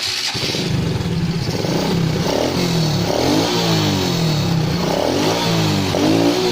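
Honda Supra 125's single-cylinder four-stroke engine revving in repeated throttle blips, its pitch rising and falling about once a second.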